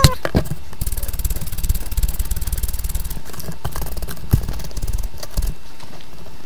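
Rapid light tapping and knocking close to the microphone, thinning out after about five seconds, over a steady low hum.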